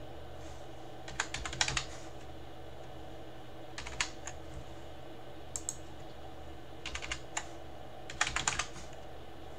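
Computer keyboard being typed on in several short bursts of keystrokes with pauses between them, as a password is entered, over a steady low hum.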